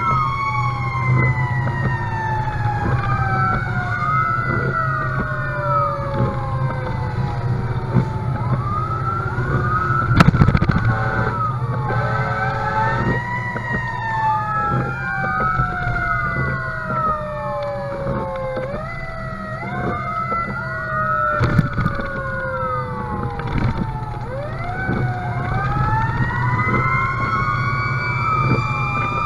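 Fire engine sirens wailing from the responding engine, heard inside the cab as several overlapping tones that rise and fall, one of them sliding slowly down in pitch over several seconds. A steady engine and road rumble runs underneath, with two sharp knocks, one about ten seconds in and one about twenty-one seconds in.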